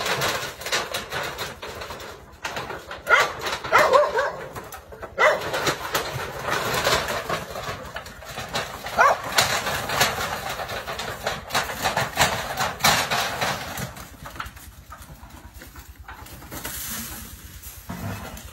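Several dogs barking at a snake in short, repeated barks, busiest in the first half and quieter after about fourteen seconds.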